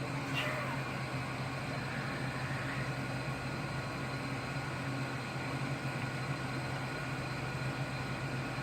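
Air conditioner running with a steady low hum and hiss.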